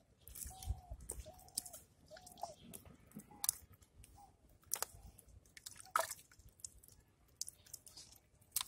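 A hand and arm squelching and groping in wet mud and muddy water in a dug hole, with scattered wet sucking clicks and smacks.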